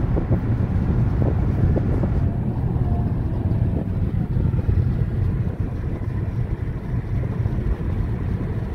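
A car driving along a highway, heard from inside: a steady deep rumble of engine and road noise, with wind buffeting the microphone.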